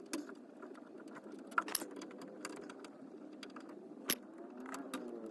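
Irregular light clicks and metallic clinks of hand tools working inside a car door, with two sharper knocks, about a second and a half in and near the end.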